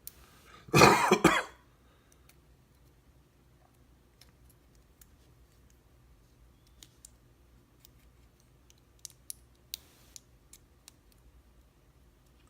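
A man coughs, two quick coughs about a second in. Later comes a scatter of faint, sharp clicks of small metal parts being handled.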